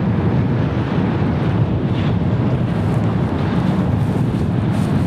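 Wind buffeting the microphone: a steady, deep rush with no pauses.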